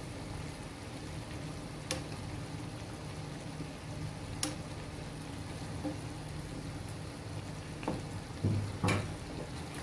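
Chicken curry simmering in a non-stick frying pan, a steady low sizzle, while a wooden spatula and a spoon gently turn the chicken pieces, with four light clicks of the utensils against the pan.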